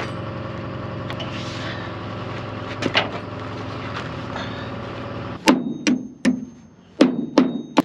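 Diesel truck engine idling steadily with a couple of light clicks. About five and a half seconds in, a claw hammer strikes metal on the trailer deck six times, two or three blows a second, each with a short metallic ring.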